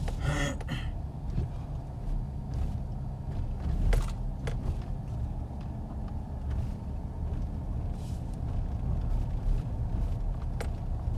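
Car driving, heard from inside the cabin: steady low road and engine rumble, with a few short clicks and knocks, the loudest about four seconds in.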